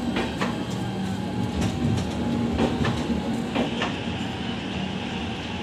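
Indian Railways LHB passenger coaches rolling past with a steady rumble, their wheels clicking sharply and irregularly over rail joints. A faint hiss joins in about halfway through.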